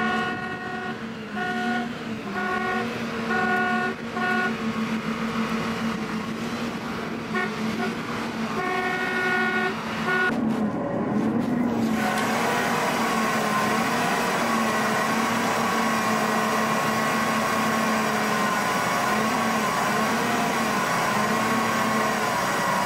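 Vehicle horn honked in a quick string of short toots, with a second short run about nine seconds in, over a running bus engine. From about twelve seconds in there is a steady drone of the bus under way, with a faint wavering whine.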